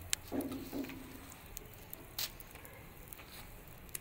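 Quiet handling sounds as oil is brushed onto fish skewered over a charcoal brazier: soft wet dabs and a few sharp clicks.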